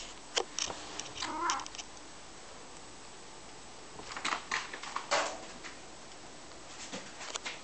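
Maine coon cat giving a few short meows, with light clicks and taps in between.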